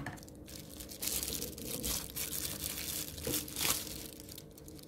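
Plastic bubble wrap bag crinkling and rustling as it is handled and pulled open, in irregular short crackles.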